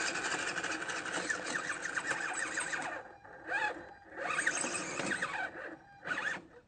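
Small radio-controlled rock crawler's electric motor and gearbox whining as it drives over dirt, the pitch rising and falling with the throttle. It runs steadily for about three seconds, then comes in short bursts with pauses between them.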